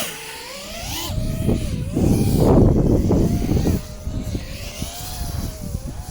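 Five-inch FPV quadcopter's brushless motors whining, the pitch rising and falling with the throttle. Low wind rumble buffets the microphone, loudest from about two seconds in to nearly four.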